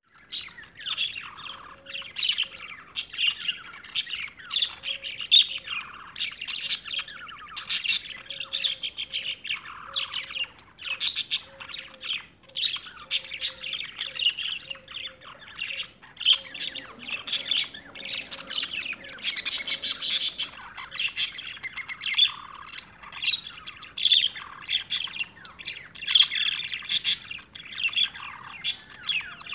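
Several small birds chirping and twittering in quick, overlapping calls without pause.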